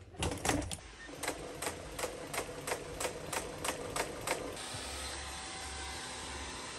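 Industrial sewing machine stitching slowly through a padded car-seat cover, clicking about three times a second with each stitch. The stitching stops about four and a half seconds in, leaving a steady hum.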